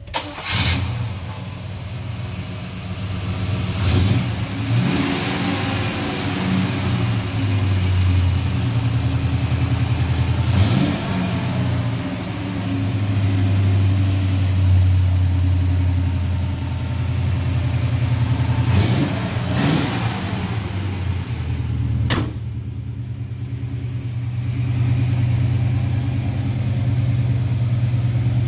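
The V8 engine of a 1967 Chevrolet Impala SS starts right at the beginning and settles into a steady low idle. The throttle is blipped several times, each rev rising and falling back to idle, with a sharp click around two-thirds of the way through.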